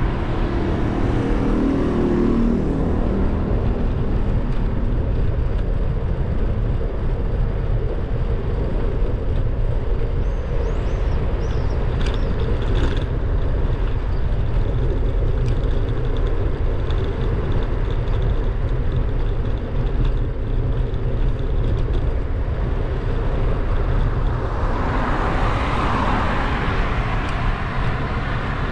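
Steady wind rumble on the microphone of a camera moving along a road, with road traffic: an engine hum in the first couple of seconds and the rising and fading noise of a vehicle passing a few seconds before the end.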